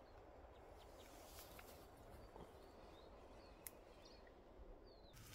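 Near silence: faint woodland ambience with a few small, faint bird chirps and a single soft click about two-thirds of the way in.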